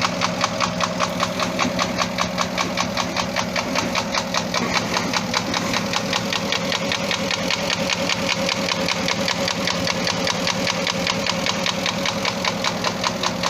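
Porsche Cayenne Turbo's twin-turbo V8 idling with a steady, rapid, regular knock. The mechanics suppose the knock comes from scoring in the cylinders.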